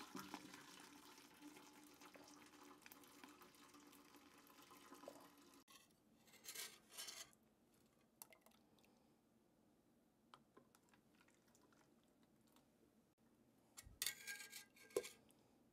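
Hot barbecue sauce pouring from a stainless steel pot through a wire-mesh strainer into another pot, a steady liquid splatter for about six seconds. Then quieter ladling: brief scrapes of a metal ladle in the pot and a metal clink near the end as sauce is ladled into a funnel.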